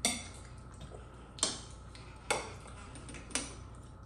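A metal utensil clinking against a pot or dish four times, roughly a second apart, each strike sharp and ringing briefly.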